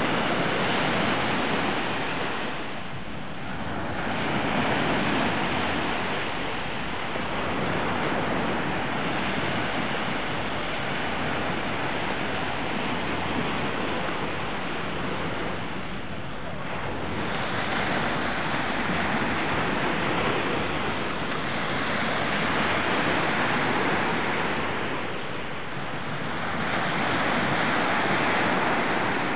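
Small Black Sea waves breaking and washing up a sandy beach, the surf rising and fading in slow swells every several seconds.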